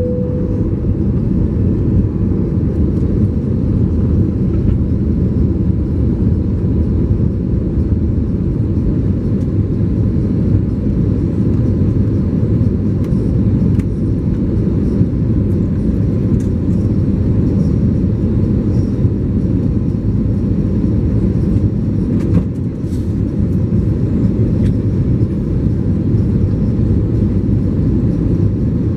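Steady low roar of engine and airflow noise inside the cabin of an Airbus A320neo climbing out shortly after takeoff, heard from a window seat over the wing, with a slight dip about three-quarters of the way through.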